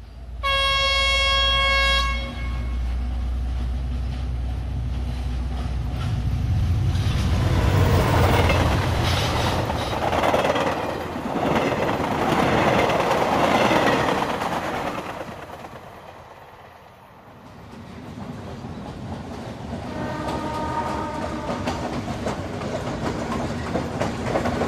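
Diesel passenger train sounding its horn once, a held note of about a second and a half, then the rumble and clatter of the train running on the rails, loudest in the middle. A shorter, fainter horn sounds again later over the steady rattle.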